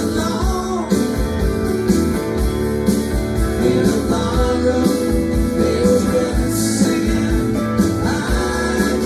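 Rock band playing a song, with strummed guitars over a steady drum and bass beat, and a voice singing at moments.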